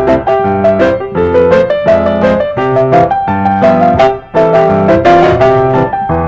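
Background piano music, notes struck in a quick, steady flow.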